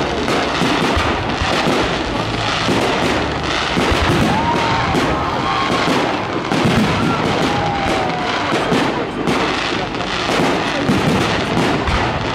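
Fireworks display: aerial shells bursting and crackling in a rapid, continuous volley, several bangs a second throughout.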